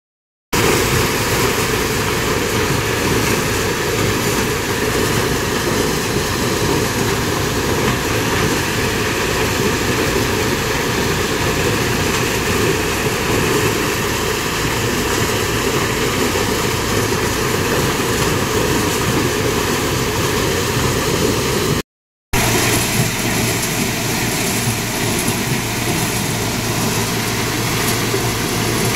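Maize thresher (corn sheller) running steadily under load, a loud continuous machine noise that drops out briefly about 22 seconds in.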